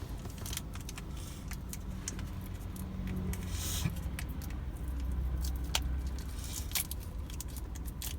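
Car engine idling with a steady low hum, swelling a little twice, under scattered light clicks and rattles of small objects being handled.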